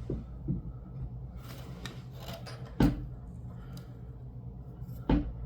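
Handling noises as the camera and lock setup are moved around on a work surface: a few knocks and bumps, the loudest about three seconds in, with rubbing and scraping between them, over a low steady hum.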